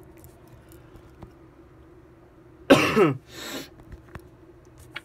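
A person coughs twice about three seconds in, the first cough loud and the second softer.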